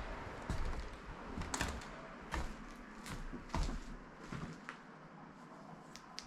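A series of irregular knocks and clicks that thin out and fade after about four seconds.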